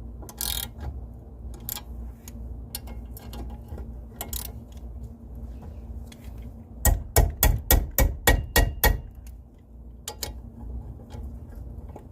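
A quick run of about ten sharp knocks, roughly five a second, a little past the middle, among scattered small clicks of handling: a brake caliper cover being knocked into place over the caliper.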